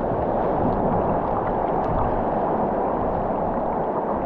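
Steady rush of whitewater rapids churning around a kayak's bow, close to the microphone.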